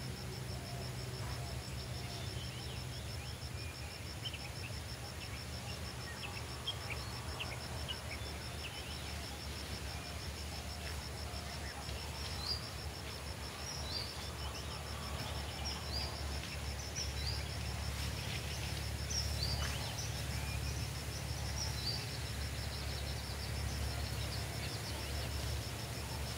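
Rural outdoor ambience: an insect trilling steadily in a high, fast pulse, with short bird chirps scattered through, most often in the middle stretch, over a low steady rumble.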